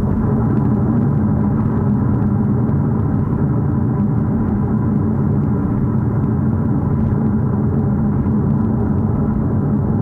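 Mercedes-AMG CLA 45 S running steadily, an even low drone from its engine with no change in pitch or level.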